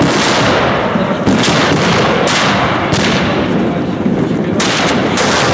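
Sustained black-powder musket fire: many shots overlapping in a continuous crackle, with sharper single reports standing out every second or so.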